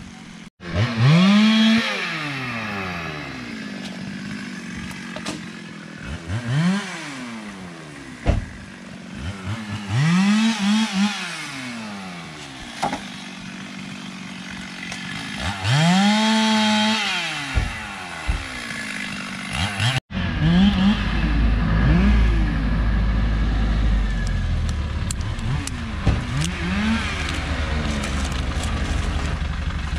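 Two-stroke chainsaw revving up and dropping back again and again, about four times, as it cuts felled acacia. After a sudden cut, a truck engine runs with a heavy low rumble, with the saw still faintly revving behind it.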